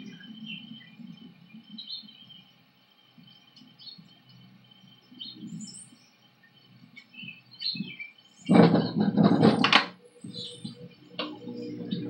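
Birds chirping faintly over a low background rumble. About eight and a half seconds in, a loud burst of noise lasts about a second and a half.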